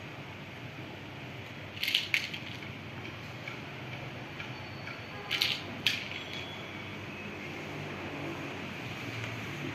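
A clear plastic bag crinkles in two short bursts, about two seconds in and again past five seconds, as a cat inside it shifts. Under the crinkling is a steady low background hum.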